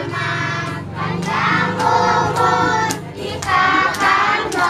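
A group of voices, children among them, singing a birthday song together, with a few sharp claps among the singing.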